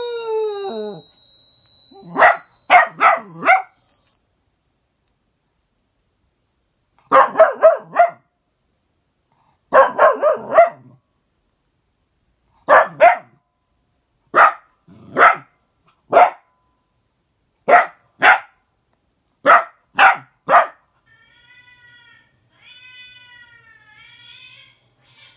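A dog barking in sharp bursts, first in quick runs of two or three barks and then in single and paired barks, followed near the end by fainter rising-and-falling whining cries.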